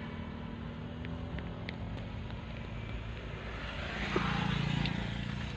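Truck engine running, heard from inside the cab: a steady low hum that grows louder about four seconds in.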